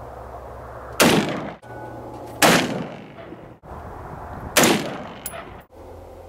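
AR-15 rifle firing single shots: three sharp cracks about a second and a half to two seconds apart, each trailing off in a short echo, with a fourth shot at the very end.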